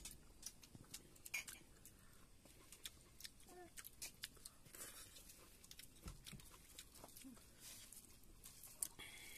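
Faint sounds of a man eating rice with his fingers: soft chewing and small scattered clicks, with a short animal call about three and a half seconds in.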